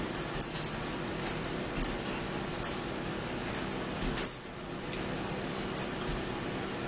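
Close mouth sounds of eating: an irregular run of wet chewing clicks and lip smacks, the loudest about four seconds in, over the steady hum of a room fan.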